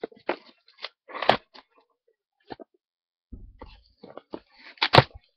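Packaging crinkling and crackling in irregular bursts as a mail package is opened, with the loudest crackles about a second in and near the end.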